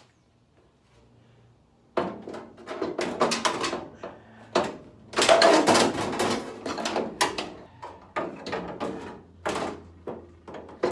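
Replacement steel floor pan being handled and set onto a 1967 VW Beetle chassis: a run of irregular metal knocks and clunks that starts about two seconds in.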